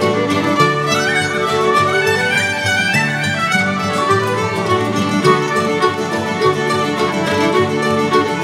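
Instrumental background music: a melody line moving over a steady lower accompaniment.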